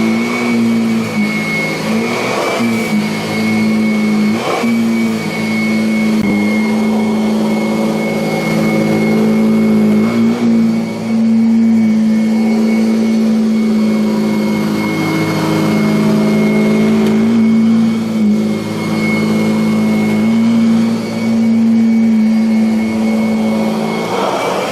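Kirby Avalir upright vacuum cleaner's motor running steadily with a strong hum and a high whine, dipping briefly every few seconds as it works over carpet.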